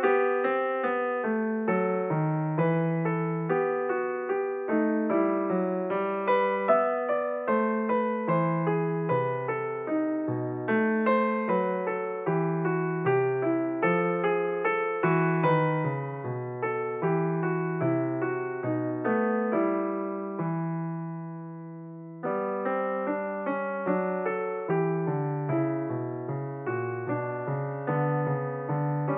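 Background solo piano music, a steady stream of notes, with a held chord dying away about twenty seconds in before the playing picks up again.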